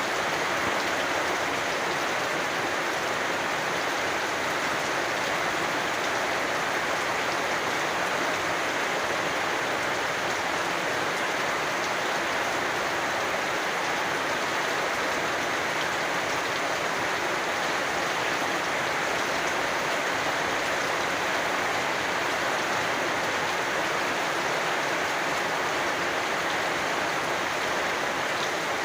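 Steady rain falling, a dense even hiss that holds the same level throughout.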